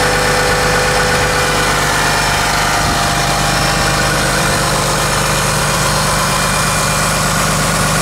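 A vehicle engine idling steadily and loudly, with an even hiss over it and no change in speed.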